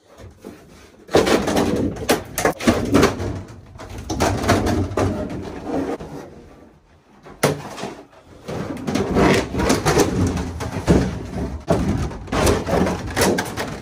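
Knocking, scraping and clattering handling noises in a small bathroom, with a single sharp knock about seven and a half seconds in.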